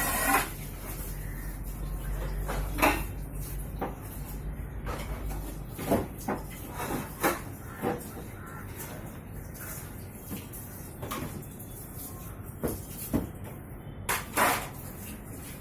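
Samsung top-loading washing machine knocking and clattering irregularly, with a low hum for the first six seconds. The owner takes the noise for a coin caught in the drain chamber.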